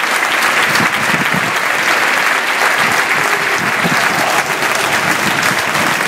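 Large stadium crowd applauding, a dense and steady clapping that does not let up.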